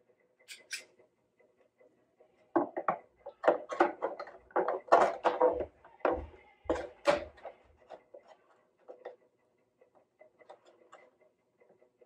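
Small clamps and tools being handled against the open wooden body of an archtop guitar: a couple of light clicks at first, then a run of knocks, clatters and rattles, then scattered faint ticks.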